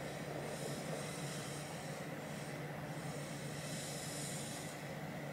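Steady room tone: an air-conditioner's low hum and even hiss, with two faint, soft swells of hiss about half a second in and around four seconds.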